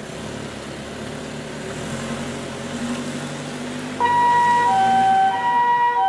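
Ambulance driving off with its engine running, then about four seconds in its Japanese two-tone "pii-poo" siren starts suddenly and loudly, alternating between a higher and a lower tone.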